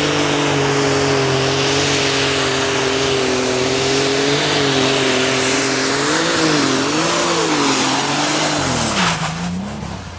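Super Stock pulling tractor's engine running flat out under load, a steady note with a high whistle over it. About six seconds in the engine note starts to waver up and down, then near the end the pitch falls and the sound dies away.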